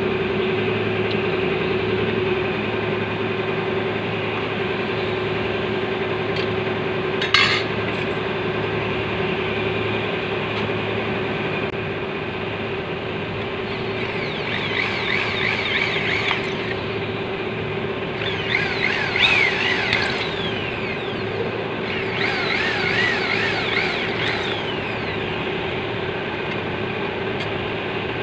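Corded electric hand drill boring through thin metal plates in three bursts of a few seconds each, a high wavering whine rising as the bit cuts. A steady hum runs underneath, and there is a single sharp click about seven seconds in.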